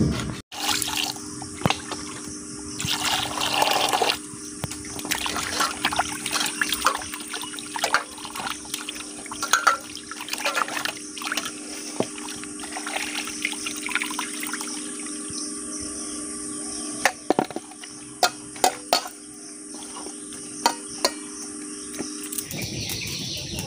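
Pieces of rohu fish being washed by hand in a steel bowl of water: irregular splashing and sloshing, with sharp knocks of fish and hands against the bowl.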